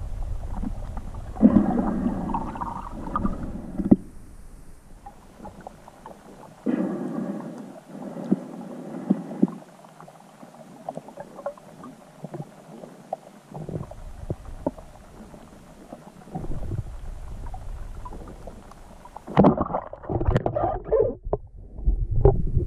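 Muffled underwater recording in pond water: two bursts of bubbling, each a couple of seconds long, then a low rumble with scattered small clicks, and a louder stretch of bubbling and water movement near the end.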